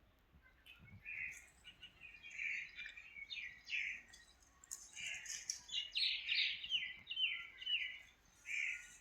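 Birds chirping and calling, with a quick run of short calls, several falling in pitch, from about five to eight seconds in.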